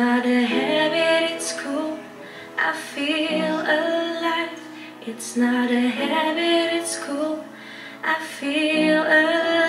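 A woman singing with vibrato over her own upright piano accompaniment, in four phrases of about two seconds, each followed by a brief pause.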